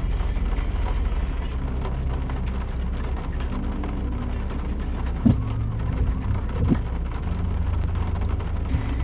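Off-road vehicle driving over a rough dirt track, a steady low rumble of engine and tyres. Two knocks from jolts come a little past the middle.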